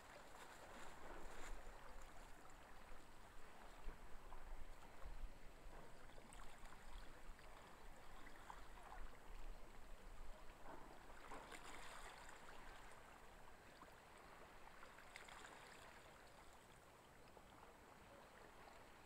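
Faint outdoor ambience: a steady soft hiss with wind gusting on the microphone, the gusts dying down after the first several seconds.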